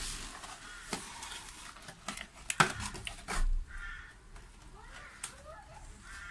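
Handling of a thin plastic bottle packed with soil: scattered clicks and crinkles of the plastic as onion sets are pushed in through its side, the sharpest about two and a half seconds in, followed by a short dull thump.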